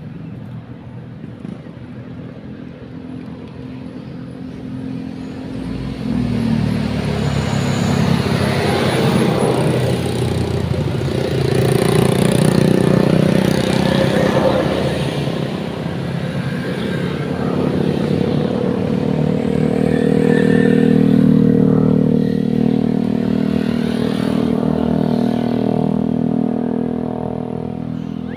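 Road traffic passing: vehicle engines hum and grow louder about six seconds in, swell twice, then fade near the end.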